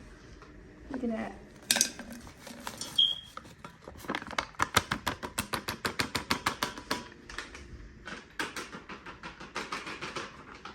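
A utensil clicking rapidly against a mixing bowl, about five strokes a second, as cookie dough mix is stirred; the stirring pauses briefly and then starts again.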